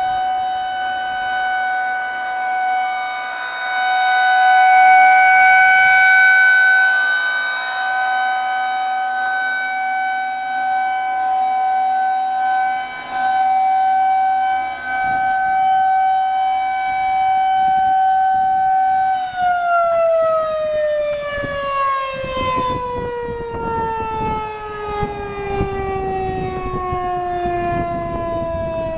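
Federal Signal 2001-130 electromechanical outdoor warning siren sounding a steady tone during a test, its loudness swelling and fading as the rotating head sweeps past. About two-thirds of the way through it cuts off and winds down, the pitch falling steadily.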